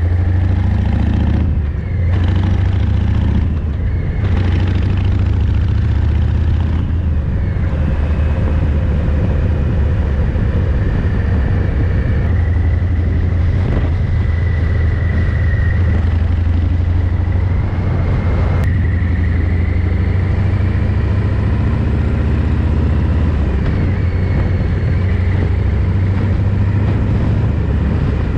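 Harley-Davidson Fat Boy 114's Milwaukee-Eight V-twin running through a Vance & Hines exhaust under way, a steady low rumble that dips briefly twice near the start. The recording is overloaded from microphone gain set far too high, so the engine sound is distorted and smeared.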